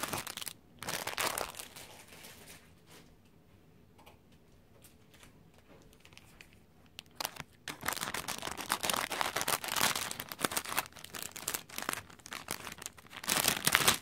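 Thin plastic packaging crinkling as it is handled and cut open with scissors to take out a shower cap. There is crinkling for the first couple of seconds, then a quiet stretch, then dense, continuous crinkling from about halfway through.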